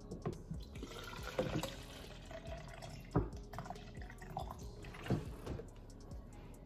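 Water poured from a plastic gallon jug into a plastic protein shaker bottle, with about four louder irregular knocks along the way.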